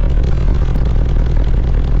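Very loud, steady deep bass from a car-audio system of six 18-inch Crossfire subwoofers, with a rough rattling haze above the bass.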